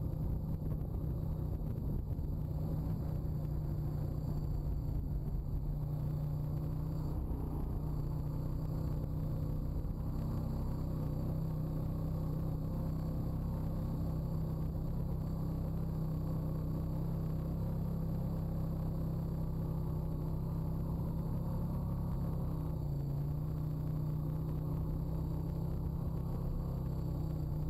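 Honda ATV's single-cylinder four-stroke engine running steadily as the quad is ridden along a dirt trail. The engine note dips briefly about two-thirds of the way through, then picks back up.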